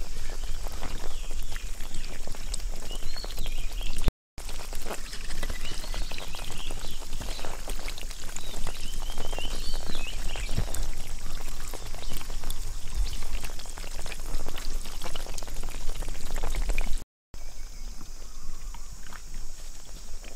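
Water and mud splashing and sloshing in shallow water, many small irregular splashes, with high chirping calls over a steady high hiss. The sound cuts out briefly twice, about four seconds in and near the end.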